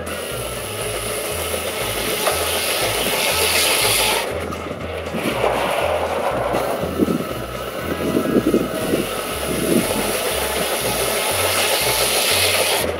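A sawmill blade driven by a 1912 Case 110 steam traction engine cuts through a log twice, with loud high-pitched sawing for about the first four seconds and again from about nine seconds in. A steady low pulsing beat runs underneath.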